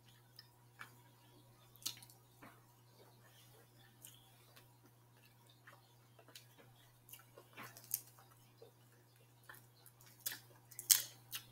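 Faint, scattered clicks and crackles of hands picking through seafood-boil food and peeling shrimp shells, coming louder and closer together near the end.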